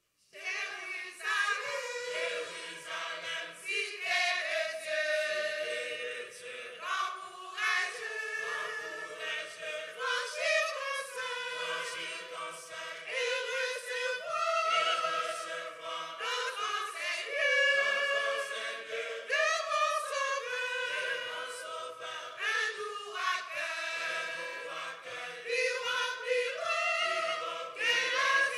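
Church choir of men and women singing a hymn together, the voices coming in all at once at the start.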